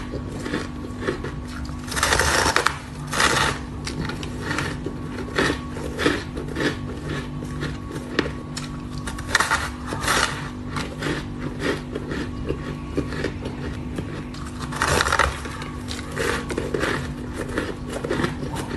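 Close-up biting and chewing of a block of soft shaved ice: continuous fine crunching and crackling, with louder bursts of crunching about two seconds in, around nine to ten seconds, and at about fifteen seconds.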